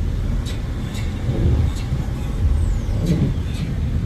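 Steady low rumble of a Mercedes-Benz C300 4MATIC driving on snowy roads, heard from inside, with short, sharp clicks at irregular intervals.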